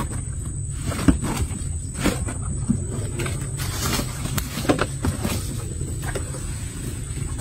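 Scattered short knocks and light splashes from hands working in the water at the side of a small boat, over a steady low rumble and a thin steady high whine.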